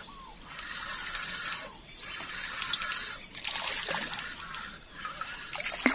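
River ambience: water trickling, under a high hiss that swells and fades about every second and a half.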